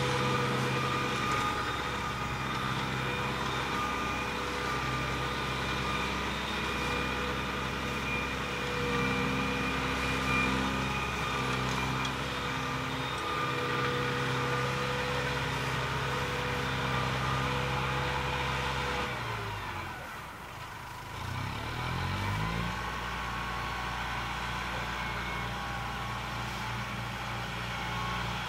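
Kubota Super 110A tractor's diesel engine running steadily while pulling a rotary tiller through a muddy field. About two-thirds of the way through, the engine speed drops and then rises back within a couple of seconds before settling steady again.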